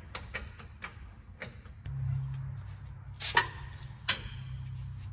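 Light metallic ticks, then two sharp metal clanks with a short ring about three and four seconds in, as a Belltech lowering coil spring is handled and set into the rear axle spring seat. A low steady hum comes in about two seconds in.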